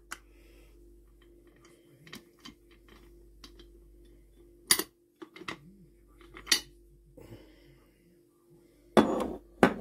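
Metal clicks and clanks of a cast-aluminium Afghan kazan's lid and clamps being handled as the unpressurised pot is opened: scattered light clicks with a few louder knocks, the loudest near the end.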